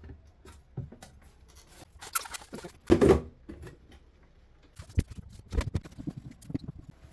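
Refrigerator shelves and parts being dried and handled with a hand towel: scattered light knocks and clicks with short rubbing sounds, the loudest about three seconds in.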